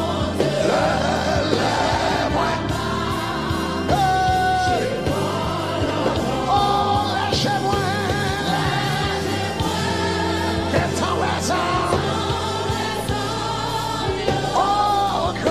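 Haitian Creole gospel worship song: voices singing together, with long held notes, over a live band with drums and cymbals.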